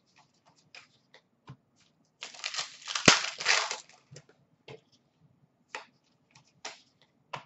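Plastic foil trading-card pack wrapper crinkling and tearing for a couple of seconds, with a sharp snap in the middle. Light clicks and snaps of cards being handled come before and after.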